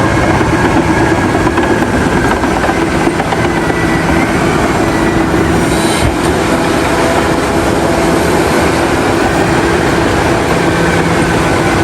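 Heavy bulldozer at work: a large diesel engine running steadily under load, with the clatter of its steel tracks, as one loud, unchanging wall of machine noise.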